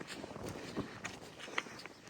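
A hiker's footsteps on the climb, an irregular run of short crunching steps.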